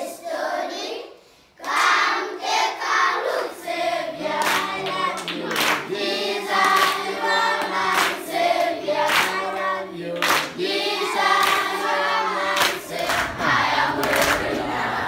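A classroom of children singing together in chorus and clapping their hands along with the song in a steady rhythm. The sound breaks off briefly about a second and a half in, then the singing and clapping go on.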